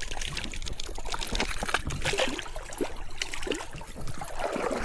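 Stream water trickling, with many small irregular splashes from a hooked brown trout being brought in from the water.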